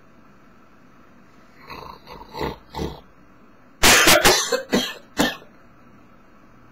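A man making cough-like vocal noises: a few short, soft sounds about two seconds in, then a loud cluster of about four harsh, coughing bursts about four seconds in.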